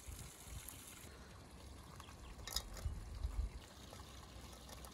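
Dried apricots and then golden raisins dropped by hand onto a mound of rice and meat in an enamel bowl: faint, soft pattering with a few light clicks about two and a half seconds in.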